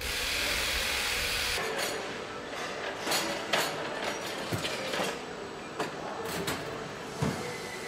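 Assembly-line factory floor noise: a hiss for the first second and a half, then a string of scattered clanks and knocks over a steady background.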